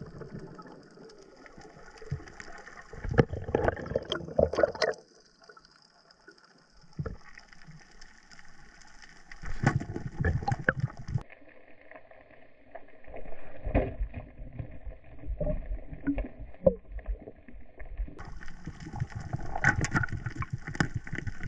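Underwater camera audio: water rushing and gurgling around the housing in irregular surges, with a few muffled knocks.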